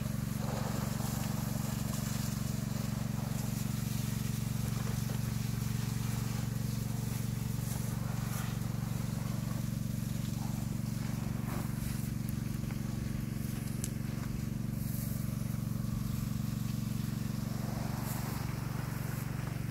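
A steady low mechanical hum, unchanging throughout, with faint scattered clicks and rustles.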